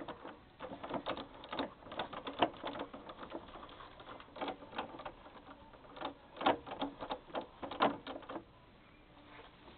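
Renault 11 manual gearbox knocking: irregular clusters of sharp knocks and clatter, the sign of a gearbox fault. The knocks die away about eight and a half seconds in.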